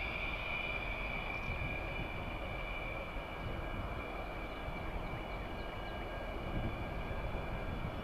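Fighter jet engine's steady high whine over a rushing noise, slowly fading away.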